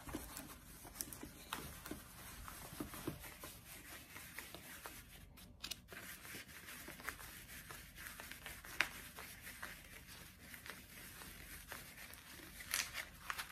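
Diamond painting canvas rustling and crackling faintly as it is handled and rolled around its tubes, with scattered small clicks and a sharper tick about nine seconds in.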